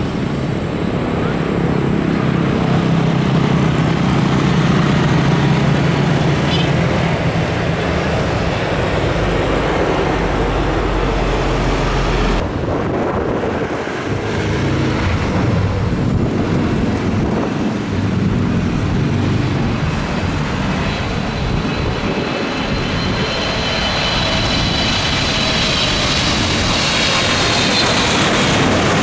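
Boeing 777 airliners landing, heard from close beside the runway: a steady jet engine noise. From the middle on, road traffic passes close by. Near the end a landing jet's turbofans give a high whine that slides slowly in pitch and grows louder.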